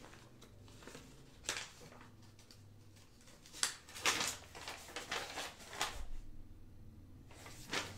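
Paper packaging rustling and crinkling as it is handled, in short bursts: one about a second and a half in, then a busy run from about three and a half to six seconds in.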